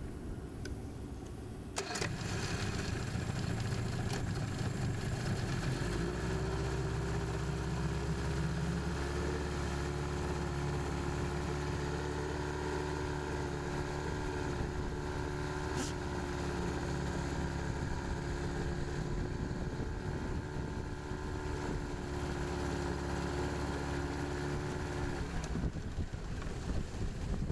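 1990 Mercury 25 hp two-stroke outboard motor starting up about two seconds in, then running at a steady note. Near the end the note changes.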